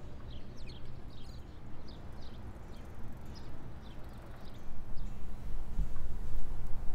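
Small birds chirping in quick, short calls over a low outdoor rumble; the rumble grows louder about halfway through.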